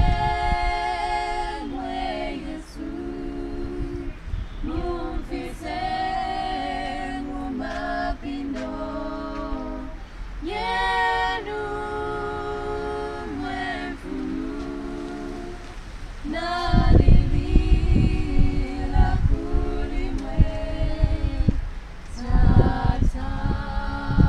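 A small group of women singing a Bemba prayer hymn a cappella, with long held notes. From about two-thirds of the way in, loud low rumbling noise on the microphone sits under the singing for several seconds.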